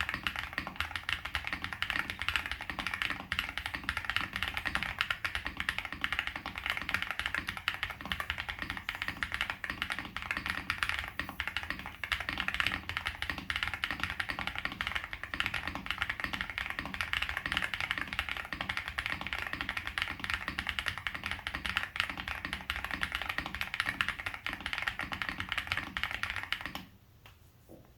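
Steady rapid typing on a Tiger Lite custom mechanical keyboard with lubed Gateron Baby Kangaroo tactile switches, SA profile keycaps, a polycarbonate plate and foam dampening. The typing stops abruptly about a second before the end.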